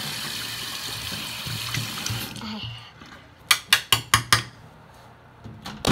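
Bathroom sink tap running steadily into the basin, turned off a little over two seconds in. About a second later come six quick, sharp taps in under a second, and one more near the end.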